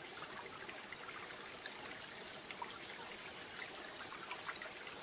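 Faint, steady trickle of flowing water.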